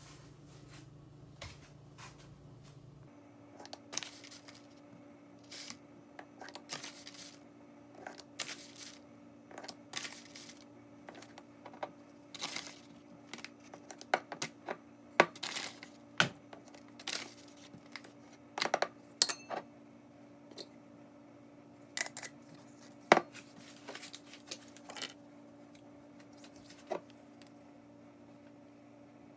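Clinks and taps of glass jars and a metal lid, a wooden spoon scooping ground coffee, and a bag being handled on a countertop. The sharp clicks come in an irregular string, loudest in the middle and again about three quarters of the way in, over a steady low hum.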